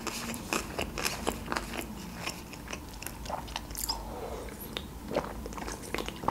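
Close-up chewing of a mouthful of food, with many short wet mouth clicks. About four seconds in it gives way to sips and swallows from a drinks can, with fewer clicks.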